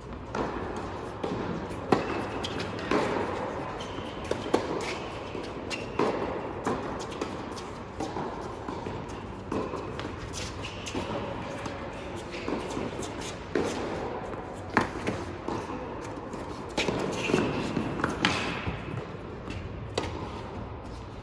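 Tennis balls struck by racquets and bouncing on an indoor hard court, a sharp hit about every second or so, echoing in a large hall.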